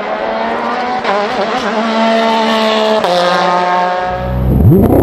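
Porsche 911 RSR race car's flat-six engine at racing speed, its pitch climbing under acceleration and dropping sharply at gear changes about one and three seconds in. Near the end a different, louder engine note sweeps up in pitch and then holds steady.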